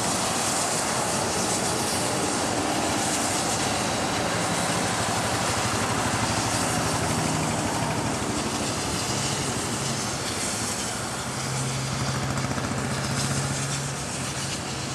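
Union Pacific Challenger No. 3985, a 4-6-6-4 articulated steam locomotive, passing with its train: a steady, continuous noise with faint low steady tones coming in from about four seconds on.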